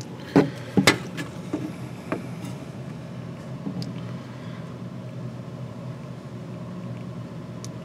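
A few sharp metallic clicks and knocks, the loudest in the first second and fainter ones about two seconds in, as an empty coin-changer hopper is handled. Under them runs a steady low machine hum.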